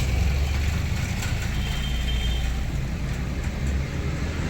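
Steady low rumble of motor vehicle noise, with a few light clicks and a brief thin high tone near the middle.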